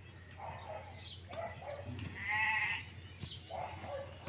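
An animal bleats once, a single call of under a second about halfway through, among scattered short bird chirps.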